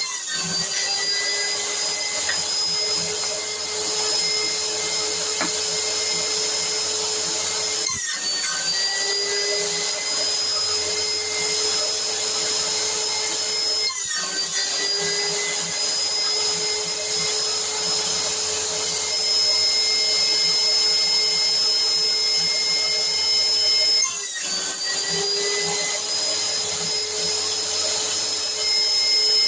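Electric motor of a homemade jointer and table saw running steadily with a constant whine. It breaks off sharply three times, and each time it picks up again, its pitch starting a little low and settling back.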